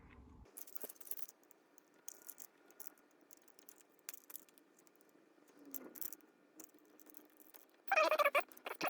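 Faint clicks, rattles and scrapes of hand tools at work on a trailer's electrical cable held in a vise, as insulation is cut away from the damaged wires, with a louder scraping sound near the end.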